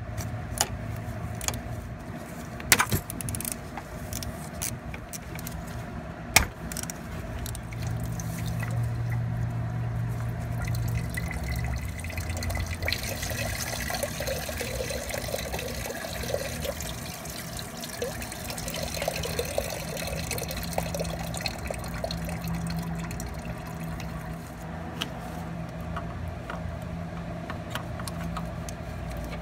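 Engine coolant pouring and trickling out of a Honda CR-V's opened thermostat housing, a steady watery rush that sets in about twelve seconds in. Before it come metal clicks and two sharp knocks from a ratchet on the housing bolts, all over a steady low hum.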